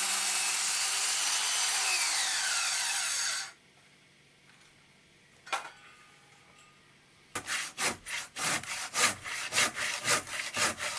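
A power tool running, its whine falling in pitch as it winds down, then cut off suddenly about three and a half seconds in. After a pause and a single click, a saw rasps back and forth through an old oak stud in quick strokes, about three a second.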